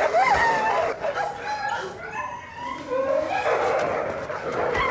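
Dogs fighting, with barks and high, wavering yelps and whines that ease off briefly in the middle.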